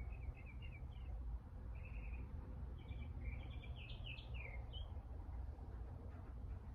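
Small birds chirping in several short bursts of quick notes, busiest about three to four seconds in, over a steady low rumble.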